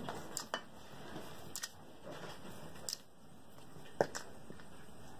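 A kitten batting a small ball around on a hard floor: a handful of scattered light taps and clicks, the sharpest about four seconds in.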